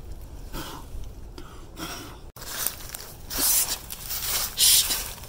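Scraping and rustling from movement in the dirt under a house, with a few louder, hissy scrapes in the second half.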